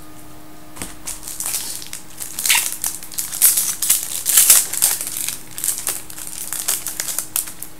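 Foil wrapper of a trading-card pack crinkling as it is handled and opened, in irregular crackly bursts that are loudest in the middle.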